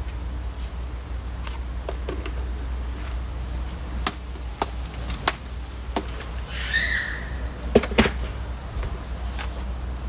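Plastic clicks and knocks from handling a lidded tub of bird food, scattered from about four seconds in, the loudest a close pair near the end, over a steady low rumble.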